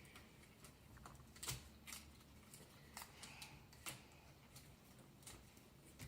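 Faint, scattered clicks and taps of paper, sellotape and a lolly stick being handled on a table, about one every second or so.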